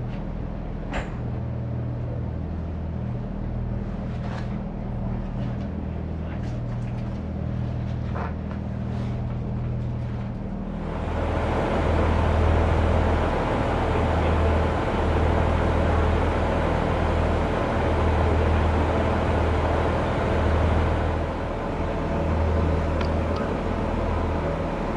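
Class 142 Pacer diesel railbus running along the line, a steady low drone with a few light clicks. About 11 seconds in the running noise grows louder and fuller, with a stronger low drone and more hiss.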